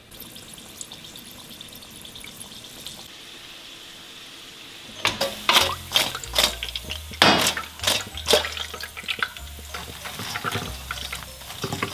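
Wontons frying in hot oil, a steady sizzling hiss. About five seconds in, sharp clatter of a utensil against the pan joins it.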